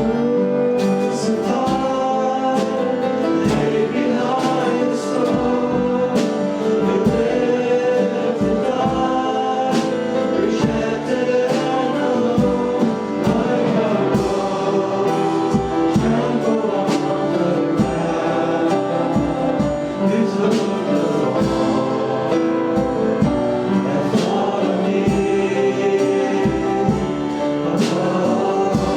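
Church congregation and worship band singing a worship song together, many voices over instrumental accompaniment with a steady beat.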